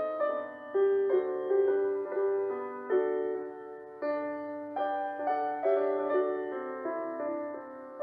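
Background piano music: a slow, gentle melody of notes that each strike and fade away.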